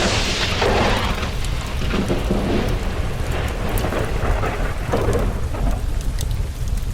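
A thunderclap breaks in suddenly and rolls away over several seconds over steady rain with a constant low rumble. Occasional small crackles of a fireplace come through.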